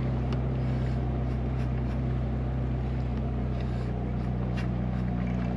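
A Ferrari's engine idling steadily in the background, its exhaust note a low, even drone.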